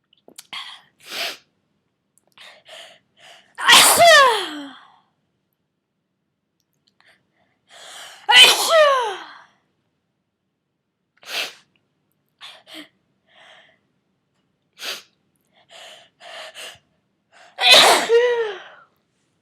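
A person with a cold sneezing hard three times, about four seconds in, at about eight and a half seconds, and near the end. Each sneeze is a sharp burst whose voice falls in pitch. Short, sharp breaths come between the sneezes.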